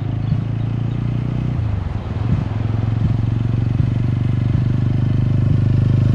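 TVS Apache RTR 160 4V's single-cylinder engine running under way, a steady note that dips briefly a little under two seconds in, then slowly grows louder.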